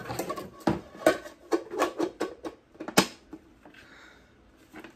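Plastic clicks and knocks of a wax warmer's lid being fitted onto the pot and the unit handled, a quick run of them with the sharpest click about three seconds in, then quieter.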